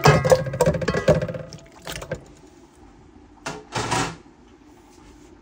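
Raw meat pieces tipped from a ceramic dish into a metal cooking pot, with the dish clattering against the pot, heaviest in the first second or so. Two shorter bursts follow, about two seconds in and near four seconds, as more pieces go in.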